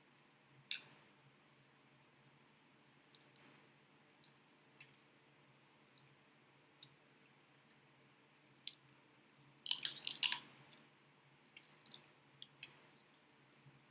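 Close-up eating sounds: scattered soft mouth clicks and bites while chewing seafood, with a brief run of louder crunching and crackling about ten seconds in. A faint steady low hum runs underneath.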